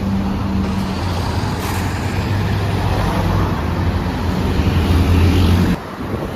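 A tour bus engine running close by, a low steady drone that grows louder and then cuts off abruptly near the end.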